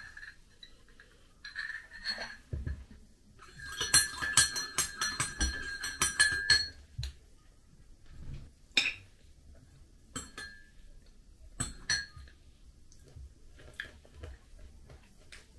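A metal spoon clinking rapidly against ceramic dishes for about three seconds, each clink ringing briefly. After that come a few single taps of the spoon on a plate, about one every second or so.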